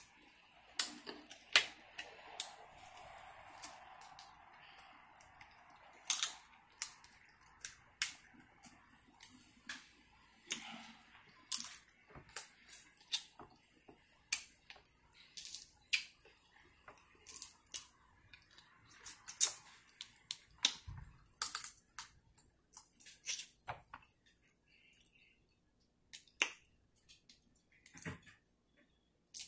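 Crab leg shells cracking and snapping as they are broken apart by hand, a string of sharp, irregular clicks throughout.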